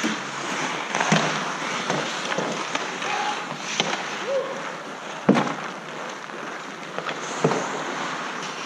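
Ice hockey play: about five sharp clacks of sticks and puck, the loudest a little over five seconds in, over a steady hiss of skates on the ice.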